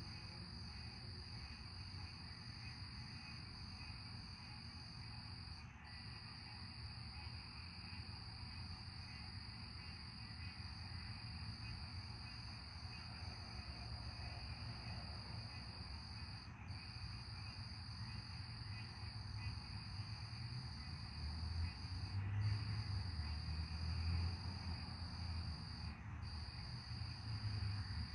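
A steady, high-pitched chorus of night insects that breaks off briefly a few times, over a low rumble of distant thunder. The rumble swells louder about twenty seconds in.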